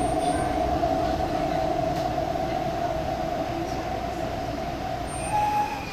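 MTR East Rail Line R-Train electric multiple unit running, heard from inside the car: a steady motor whine over wheel and rail rumble, easing gradually quieter. A brief higher whine comes near the end.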